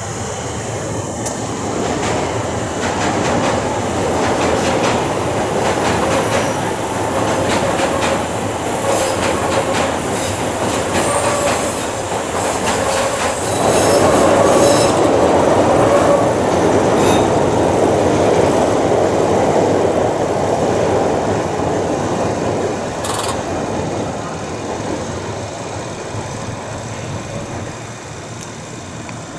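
A Chicago 'L' rapid-transit train passing on the tracks, its wheels clattering and squealing. It builds up, is loudest about halfway through, and fades away near the end.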